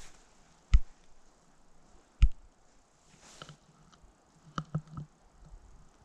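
Two loud, close thumps about a second and a half apart, then a soft swish and a quick run of lighter clicks near the end.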